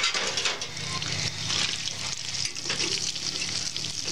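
Bacon sizzling and crackling in a stainless steel skillet on a propane camp stove, a dense steady hiss dotted with fine pops.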